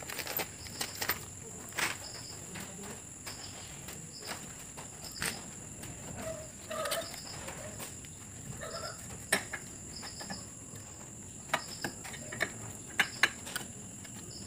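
Scattered clicks and taps of a hand screwdriver driving a screw to fasten an air conditioner's inverter control board and its plastic housing back in place. A steady high tone and short repeated high chirps sound in the background.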